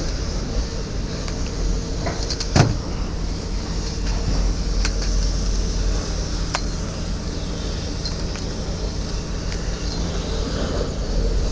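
Steady engine rumble with scattered sharp knocks, the loudest about two and a half seconds in.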